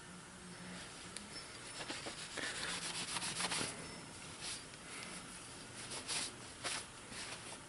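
Cloth rag rubbing over a Glock 30 pistol part, wiping off excess oil, in short uneven strokes that come thickest a couple of seconds in.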